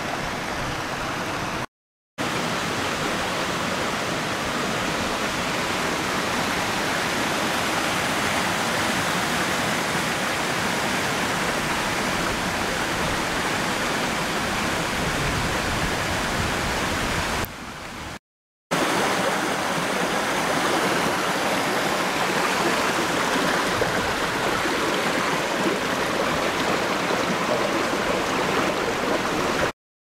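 Steady rushing of a shallow mountain stream running over rocks. It cuts out twice, briefly.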